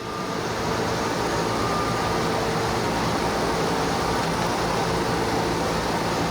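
A shop machine starts up and runs with a steady rushing noise and a faint hum. It builds over about the first second, then holds even.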